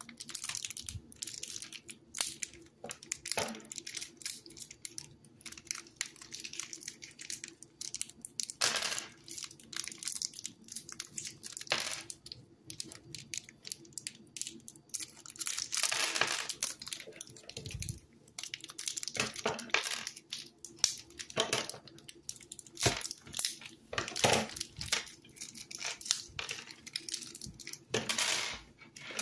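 Paper wrappers of Canel's chewing gum pieces being torn open and crinkled by hand, in irregular bursts, with small clicks of gum tablets being set down on a wooden table.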